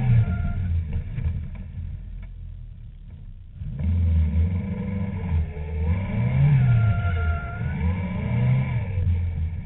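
Caterham Seven's engine heard from the open cockpit. It eases off and goes quieter for a couple of seconds, then picks up sharply a little before four seconds in, and the revs rise and fall twice near the end.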